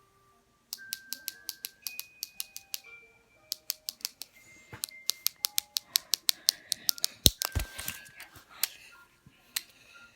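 Rapid plastic clicking of a fidget cube's buttons and switch, starting a moment in and coming in quick runs, with a couple of heavier knocks about seven and a half seconds in.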